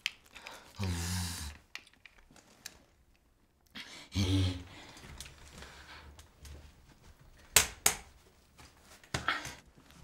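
Handling noises from a person moving with a crutch: rustling and small clicks, two short strained vocal sounds, and sharp knocks, the loudest a pair of knocks a little past halfway and another near the end.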